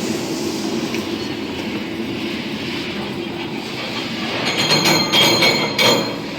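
Charcoal hammer mill crusher running, with a steady rattling rumble as it breaks charcoal into powder; a louder crackling, clattering stretch comes about two-thirds of the way through.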